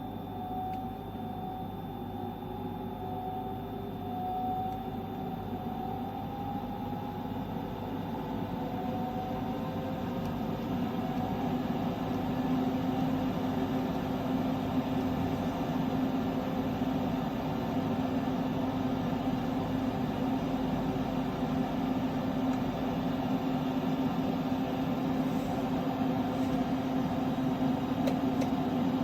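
MPP Solar PIP8048MAX hybrid solar inverter making an abnormal, steady humming and whining noise: several tones held together, some gliding slowly upward early on, with a stronger low hum setting in about halfway and the noise growing gradually louder.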